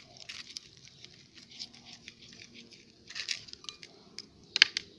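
Homemade slime being squeezed and pulled by hand, giving off irregular sticky crackles and small pops, with a sharper, louder pop about four and a half seconds in.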